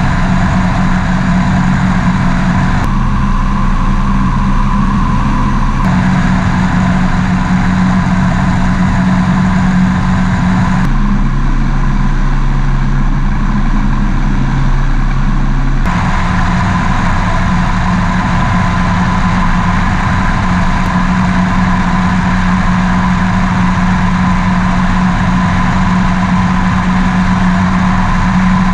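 Rotax 912S four-cylinder engine of a Quik GT450 flexwing microlight running steadily at cruise power, with rushing wind in the open cockpit. Its tone shifts abruptly a few times as the recording cuts between microphones at different spots on the aircraft.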